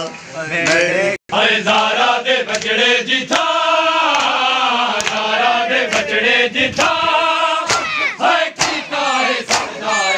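A group of male voices chanting a devotional poem together, with sharp regular beats under the chanting. The sound cuts out for a moment about a second in.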